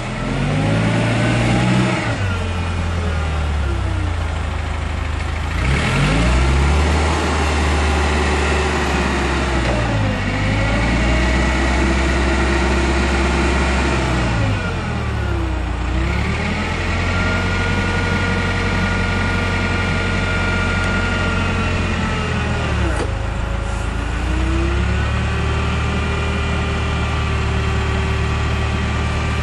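Komatsu FG25T forklift's engine running steadily, its pitch dropping and climbing back several times as it is throttled down and up.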